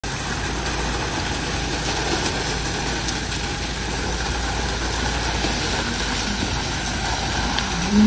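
Concrete pump running steadily as concrete is pumped through its delivery hose onto a reinforced slab, an even engine-like drone with a low hum.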